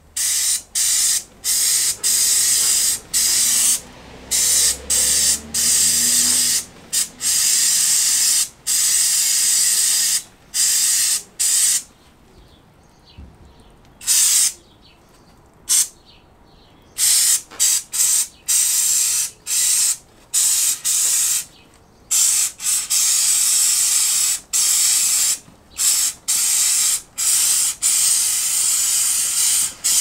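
Aerosol chain cleaner hissing from the can in many on-off bursts, some brief and some lasting several seconds, as it is sprayed onto a motorcycle drive chain. There are a couple of longer pauses around the middle.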